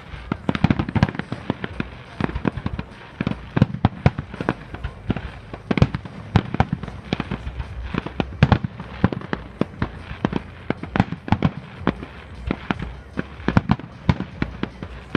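Display fireworks going off in a rapid, irregular barrage of sharp bangs and cracks, several a second without a break.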